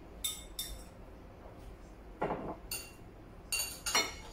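Tableware at a meal: a spoon and chopsticks clinking against porcelain bowls and dishes, about five sharp clinks, each with a short ring. A single duller, softer knock comes about two seconds in.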